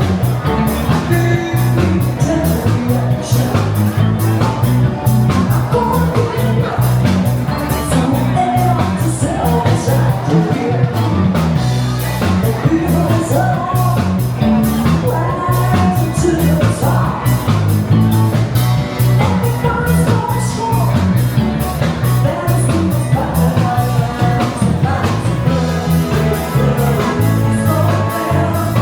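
Upbeat rock-and-roll song with a singer over bass and a steady drum beat.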